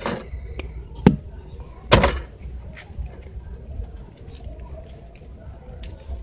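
Dry sand-cement ball being broken apart by hand: sharp crunching cracks at the start, about one second in and about two seconds in (the loudest), then quieter crumbling and gritty clicks as the pieces are worked.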